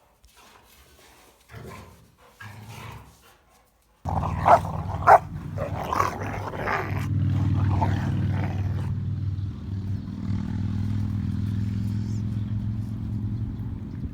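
Rottweilers growling and barking: faint at first, then about four seconds in two sharp barks, followed by a long, low, steady growl.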